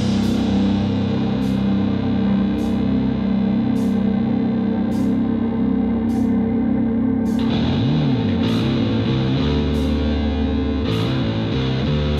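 Rock music with heavily distorted electric guitar chords over a steady drum beat, with a bent guitar note about eight seconds in.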